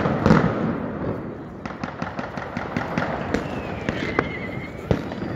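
New Year's Eve fireworks and firecrackers: a loud bang right at the start, a rapid string of cracks about two seconds in, and scattered single bangs after. A thin whistle falls in pitch and then holds a little before four seconds in.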